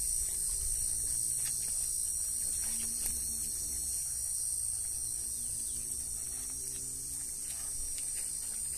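Month-old Rottweiler puppies growling and chewing as they tug at a raw chicken carcass, with faint ticks of teeth on bone, over a steady low hum.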